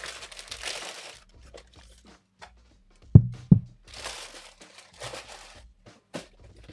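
Tissue paper rustling and crinkling as it is unwrapped from a pair of sneakers in their box, with two dull thumps about three seconds in.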